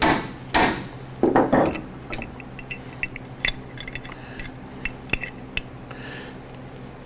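Light metallic clinks and taps of a DeWalt 788 scroll saw's aluminium connecting rod and a steel taper pin being handled, after a louder scrape in the first second.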